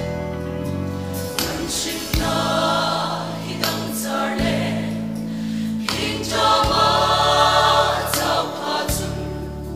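Mixed choir of men and women singing a Mizo gospel song, the phrases swelling and pausing. Steady low accompaniment chords sound underneath and change every few seconds.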